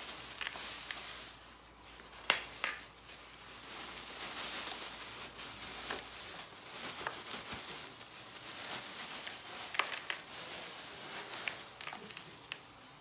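Crushed chicharon (pork cracklings) pouring out of a plastic bag into a glass bowl: rustling of the bag and crisp pattering of the pieces, with two sharp knocks a little over two seconds in.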